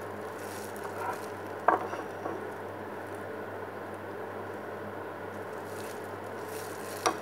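Batter sizzling steadily in the hot wells of an electric mini donut maker as it is ladled in, with two sharp clicks, one about two seconds in and one near the end.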